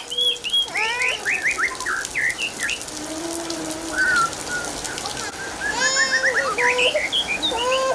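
Steady rain falling on flooded ground and puddles, with birds chirping in quick runs of short calls, thickest at the start and again near the end.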